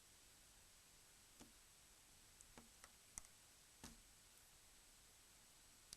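Near silence with a few faint, scattered clicks and ticks of small hand tools working on the phone's internal parts.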